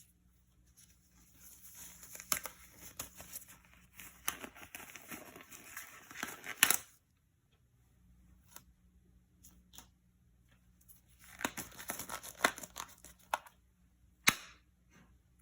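Packaging of a new iPad Pro being torn and crinkled open in two stretches, a few seconds each, with sharp clicks and snaps among the rustling.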